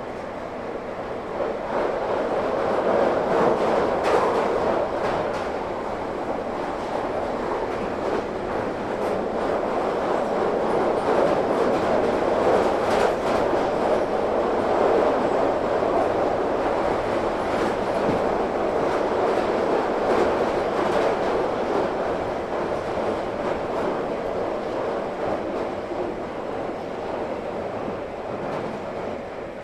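A train passing by: a steady rumble of wheels on the rails that swells about a second and a half in, stays loud through the middle and slowly fades toward the end.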